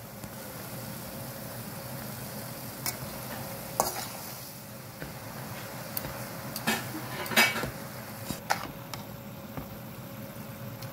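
Metal spatula stirring and scraping diced chicken, onions and vegetables in a metal kadai, with irregular clinks and scrapes of the spatula against the pan over a steady sizzle of frying. The loudest scrape comes a little past the middle.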